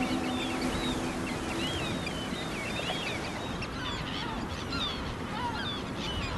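A seabird colony calling: many birds giving short, wavering high calls over one another, over a steady wash of surf and wind.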